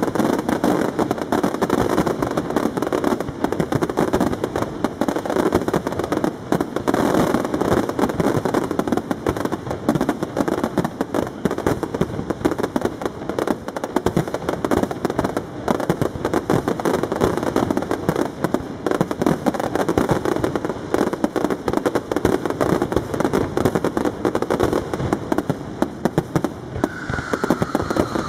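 Aerial fireworks display, a castillo barrage, firing without let-up: a dense, rapid run of overlapping bangs and cracks from shells bursting.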